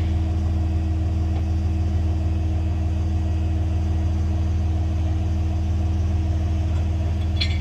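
Big forklift engine running steadily, driving the hydraulic lift as it raises a heavy mast rail: a loud, even low hum with a few steady higher tones and no change in pitch.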